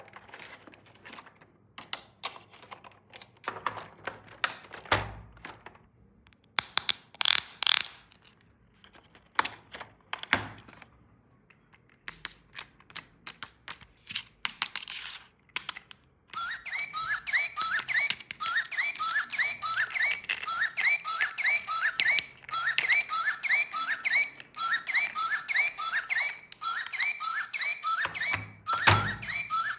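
Plastic toy pieces and packaging being handled, with scattered clicks, knocks and rustles. About halfway through, a fast repeating run of short rising squeaky chirps starts and keeps going, and a louder knock comes near the end.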